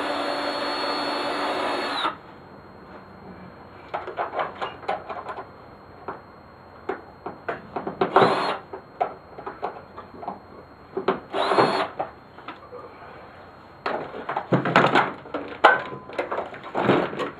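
Power drill spinning for about two seconds, then two more short bursts, driving out the screws holding the mower's plastic housing together. Between the bursts come clicks, knocks and clatter of plastic parts and wires being handled.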